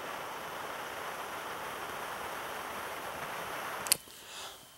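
Triple-jet butane torch lighter's flame hissing steadily as it melts the end of twisted nylon rope. It cuts off with a single sharp click about four seconds in.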